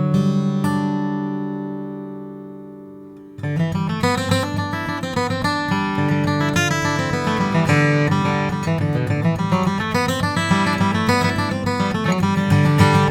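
A Martin D18 Golden Era acoustic guitar, with a solid Adirondack spruce top and mahogany back and sides, being played. A chord rings out and fades for about three seconds, then a busy passage of strummed chords and single notes starts up.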